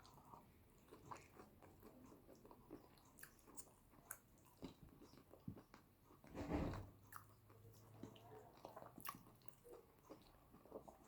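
Close-miked eating of yam with eggplant sauce: soft, scattered chewing and mouth clicks, with one louder, fuller sound about six and a half seconds in.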